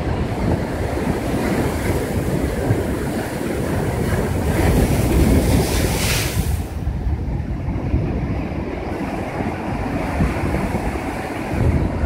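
Heavy surf crashing against rock riprap: a wave breaks into spray with a hiss that builds from about four seconds in and cuts off sharply about six and a half seconds in. Wind rumbles on the microphone.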